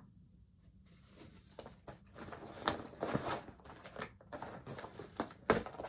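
Crinkling and rustling of cross-stitch fabric and its packaging being handled, in irregular crackles. They start about a second in and are loudest near the end.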